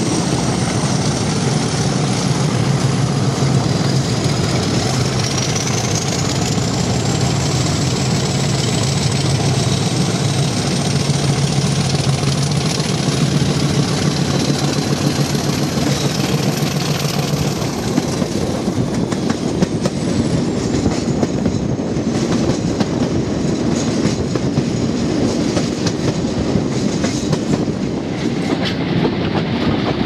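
Two English Electric Class 50 diesel-electric locomotives working hard at the head of a train, heard from an open coach window: a deep engine note with a high whine climbing steadily in pitch, over wheel clatter on the rails. A little past halfway the power eases, the whine falls away and the rail clatter comes forward.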